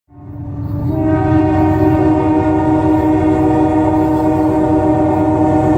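Freight locomotive's Nathan K3LA five-chime air horn sounding one long held chord, swelling up within the first second, over the low rumble of the train.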